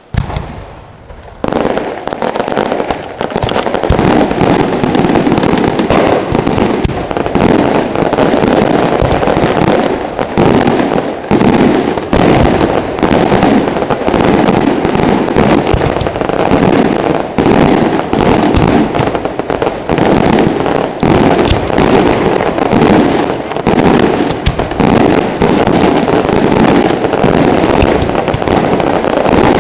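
Fireworks display: a rapid, almost unbroken barrage of loud firework bursts, starting abruptly and thickening into near-continuous bangs within about two seconds.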